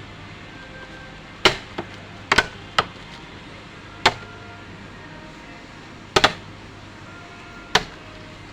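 Sharp clicks and knocks of hard parts being handled, about seven separate strikes at irregular intervals, two of them close pairs, over a faint steady hum.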